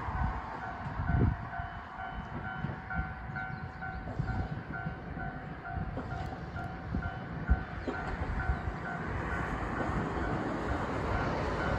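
Level-crossing warning bell ringing in a steady, quick beat as an Ichibata Electric Railway 1000-series electric train approaches, the signal that a train is due, over a low rumble with a few dull thumps.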